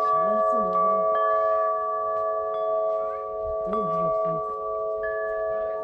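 Wind chime ringing as the wind moves it: a new tone is struck every second or so, over several long, overlapping tones that keep ringing.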